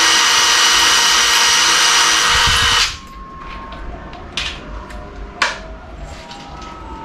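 Electric drill running steadily at full speed with a high whine, stopping abruptly about three seconds in; a few light clicks and knocks follow.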